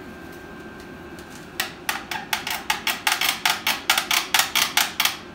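A rapid series of about twenty sharp knocks, roughly five or six a second, starting about a second and a half in: a new part being tapped along its greased mounting slide under the car until it seats.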